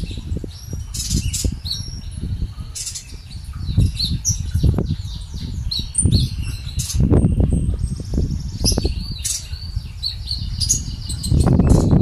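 Caged olive-backed sunbird (konin) singing sharp, high chirps and quick trilled runs of notes, in several phrases. Low thumps and rustling sound underneath.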